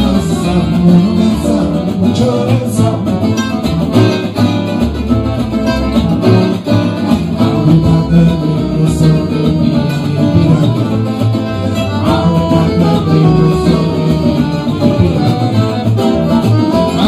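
Gypsy jazz band playing live: accordion, acoustic guitars and upright double bass together.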